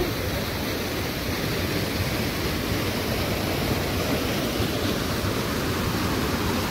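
Muddy floodwater rushing down a flood-swollen mountain stream, a steady, even rushing noise.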